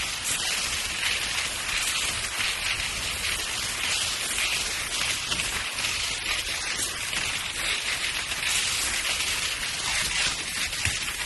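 Skis sliding downhill on snow: a steady hiss with uneven swells, brightest in the upper range.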